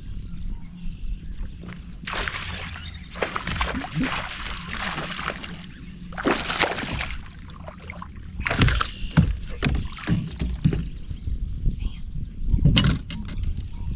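Water sloshing and splashing against a kayak in several separate bursts, over a steady low rumble.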